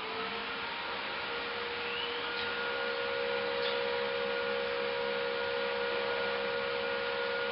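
Desktop PC starting up: its cooling fans and hard drives spin up and settle into a steady whirring hum. A faint short rising whine comes about two seconds in.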